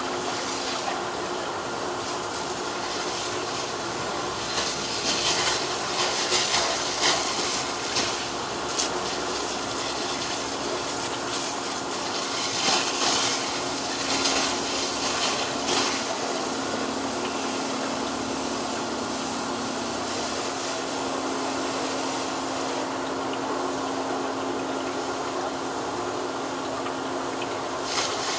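Fire hose spraying water onto a smoking burned building: a steady rushing hiss that grows louder twice, for a few seconds each, over a steady low drone of a running engine.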